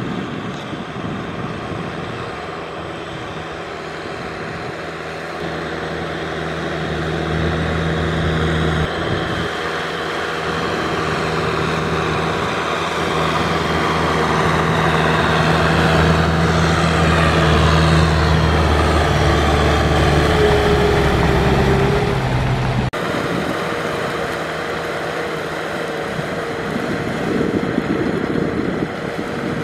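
Diesel tractor engine running steadily while the tractor levels a flooded rice paddy, growing louder as it comes closer. About three-quarters of the way through there is an abrupt change to a second tractor's engine, which is quieter and more distant.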